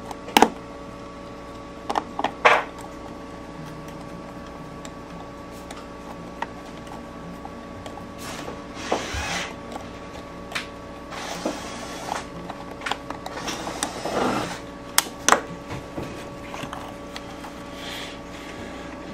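Hand tools and plastic generator panel parts being handled: a few sharp clicks in the first few seconds, then scraping and rubbing with more clicks around the middle, as wires and the control panel of a Honda EU2000i generator are refitted. A steady faint hum runs underneath.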